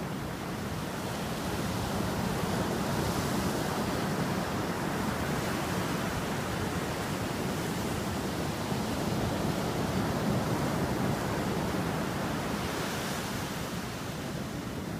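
Ocean surf breaking and washing up a sand beach in a steady rush, swelling twice with a brighter hiss as the waves come in.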